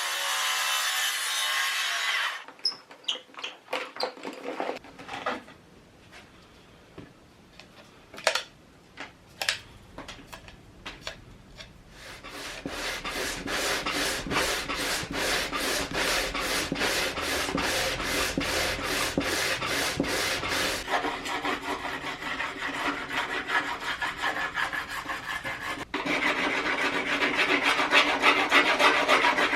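Sawing by hand through an 8 mm-thick plate that gives the cut a lot of resistance, with even back-and-forth strokes that later run together into continuous rasping. Before that come scattered scrapes and knocks and a short quiet gap.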